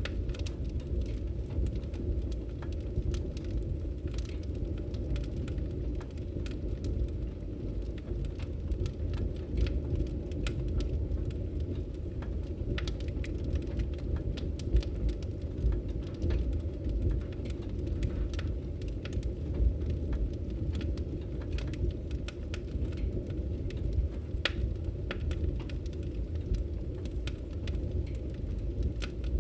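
Wood fire burning in a fireplace: a steady low rumble of flames with frequent small, sharp crackles and pops scattered throughout.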